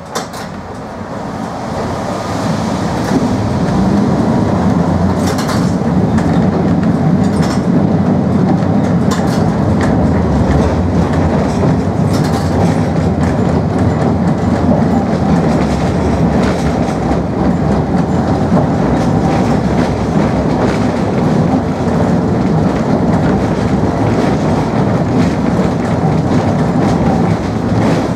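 Old two-axle tram running along street track, heard from inside the car: a steady rumble of wheels and running gear with scattered clicks and knocks. It grows louder over the first few seconds, then holds steady.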